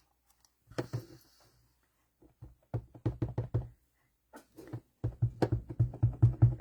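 Rapid knocking taps of a stamp mounted on an acrylic block against an ink pad as the stamp is inked, a short run about three seconds in and a longer, louder run from about five seconds in.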